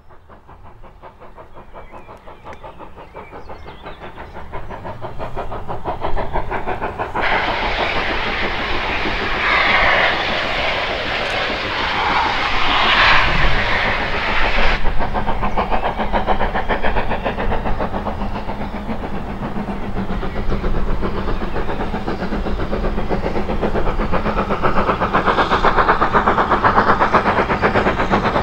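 Steam locomotive approaching with a train, its rapid exhaust beats growing louder over the first several seconds and then holding steady. A loud hiss of steam starts and stops abruptly in the middle for about seven seconds.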